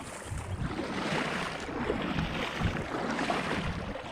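Water splashing and sloshing around a kayak, with wind buffeting the microphone in uneven low rumbles.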